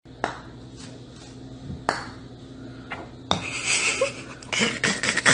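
Golf putter striking golf balls on an indoor putting mat: a few sharp clicks a second or more apart, then a quicker run of clicks near the end.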